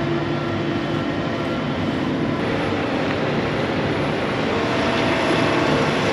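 Harvest machinery's engine running steadily. Its pitch shifts slightly a little over two seconds in, and it grows a little louder near the end.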